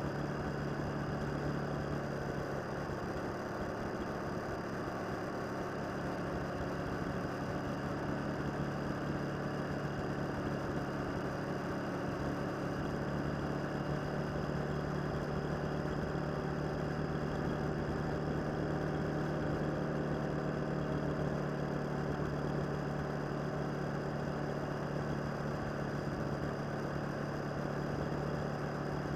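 Motorcycle engine running at a steady pitch while the bike cruises along, with no change in speed.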